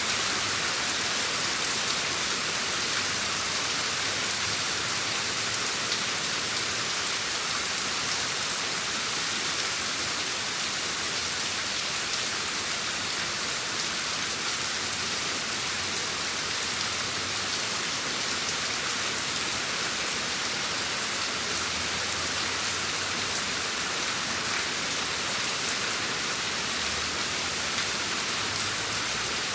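Steady rain falling on a surface, a dense even hiss with faint drop ticks and no thunder.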